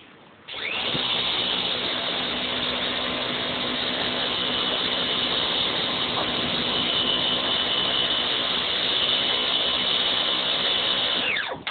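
Pressure washer running: it starts about half a second in, hums steadily under the hiss of its jet, and shuts off near the end, its motor winding down in pitch.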